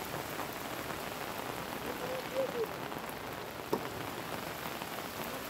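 Heavy rain falling steadily: an even hiss of rain on the ground and surrounding surfaces.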